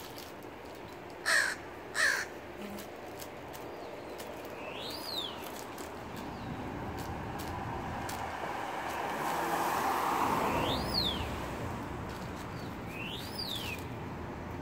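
American crow cawing twice in quick succession, two short harsh calls about a second in.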